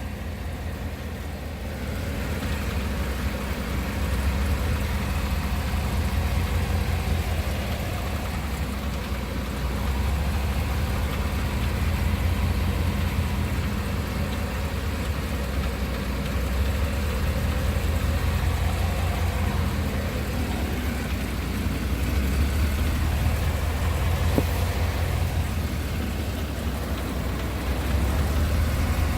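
2018 Cadillac Escalade's 6.2-litre V8 running steadily with a slight knocking noise.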